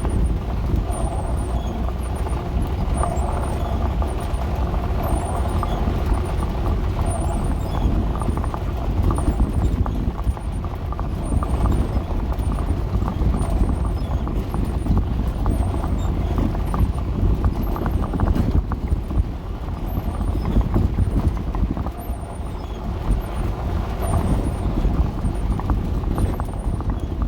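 Dodge A108 van driving over a rough, muddy road, heard from inside the cab: a steady low engine and road rumble with constant rattling and knocking from the body. A faint high squeak repeats about once a second.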